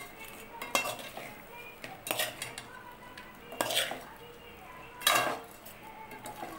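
Metal spoon stirring chunky fried chicken, onion and capsicum in an aluminium pot, scraping against the pot in four separate strokes about a second and a half apart.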